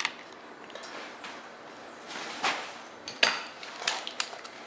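Several sharp clicks and knocks of a Tikka T3X rifle's trigger guard and action screws being seated in its polymer stock by hand, the loudest about three seconds in.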